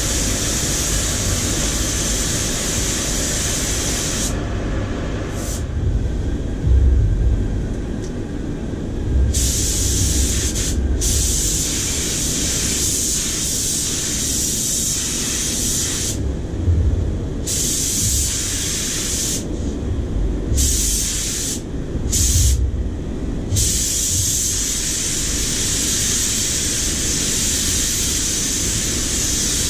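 Paint spray gun hissing as it sprays a car panel, the hiss cutting off several times for a second or so as the trigger is let go, over a steady low rumble.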